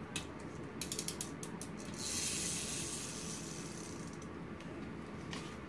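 Small toy excavator's spring motor: a quick run of ratchet-like clicks about a second in, then a steady whir as the toy runs along the mat, fading out, with one more click near the end.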